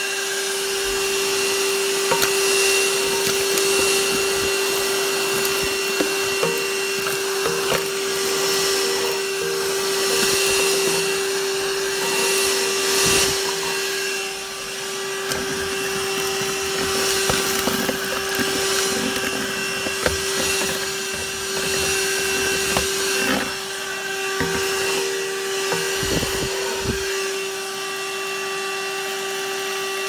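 Holife handheld cordless vacuum cleaner (90 W motor) running with a steady motor tone over the rush of air as it sucks up wood chips, ash and small sticks. Bits of debris click and rattle up the nozzle every few seconds.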